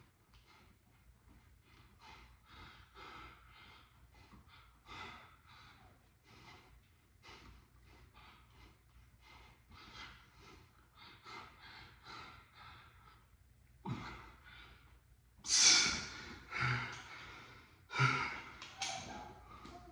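A man breathing hard from the effort of an ab exercise set: quick, short breaths over and over, then several much louder, forceful exhales near the end.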